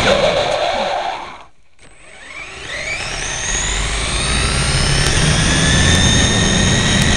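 Electric RC car's motor whining as it drives, over a low tyre-and-road rumble. About a second and a half in, the throttle is let off and it goes briefly quiet. Then the whine climbs in pitch as it accelerates again and holds steady.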